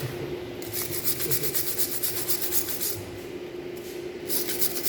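Rhythmic rasping strokes, about six a second, with a steady hum underneath.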